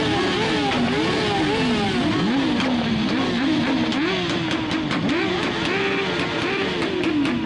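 Several motorcycle engines running together, riders blipping their throttles so the revs rise and fall over and over, overlapping.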